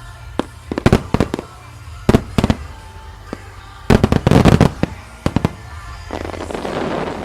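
Aerial firework shells bursting overhead in a series of sharp bangs, with a dense rapid cluster about four seconds in, then a crackling rush near the end, over faint background music.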